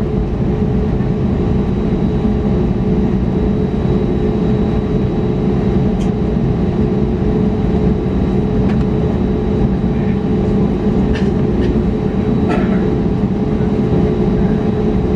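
Steady cabin noise inside an Airbus A320neo: a low, even hum of the engines and air systems with a constant tone through it, and a few faint clicks partway through.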